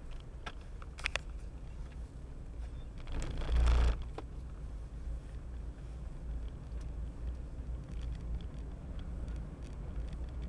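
Car driving along a road, heard inside the cabin: a steady low rumble of engine and tyres, with a few light clicks about a second in. About three seconds in, a loud rumbling rattle lasting under a second as the wheels cross a cattle grid.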